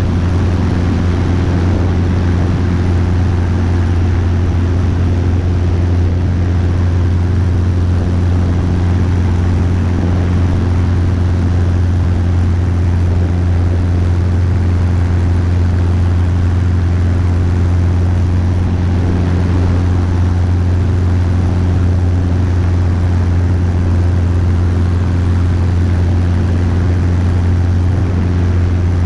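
Robinson R22 helicopter in cruise flight: a loud, steady low drone of rotor and engine with an even rush of air over it, unchanging throughout.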